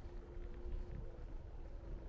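City street ambience: a steady low rumble with a faint continuous hum over it.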